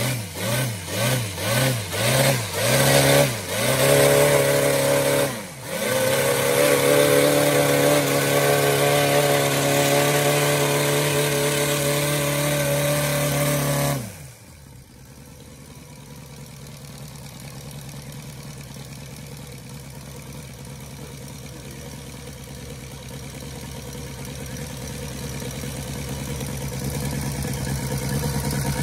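Evolution 260cc seven-cylinder four-stroke radial gas engine swinging a wooden propeller on its post-rebuild test run. It revs up and down in quick pulses about twice a second, then is held at high RPM for about ten seconds with one brief dip. About halfway through the throttle is cut abruptly and it settles to a steady idle.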